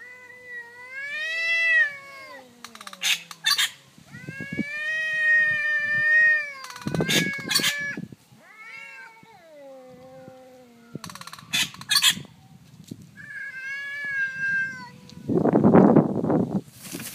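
Two cats yowling at each other in a territorial standoff: four long, drawn-out calls that waver and bend in pitch, with short sharp noisy bursts between them. A loud rough burst of noise comes near the end.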